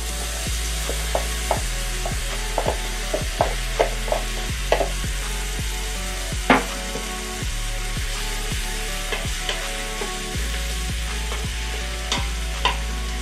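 Onion, red lentils and bulgur sizzling in an Instant Pot's stainless steel inner pot on sauté, with a steady hiss. A wooden spatula stirs and knocks against the pot many times, one knock about six and a half seconds in louder than the rest.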